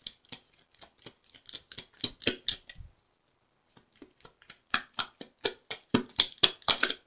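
A deck of tarot cards being shuffled by hand: a quick run of soft card slaps and flicks that pauses about three seconds in, then picks up again more loudly.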